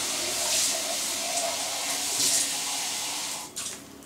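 Liquid running into a stainless steel cooking pot, a steady rushing hiss that stops about three and a half seconds in, followed by a few light clicks.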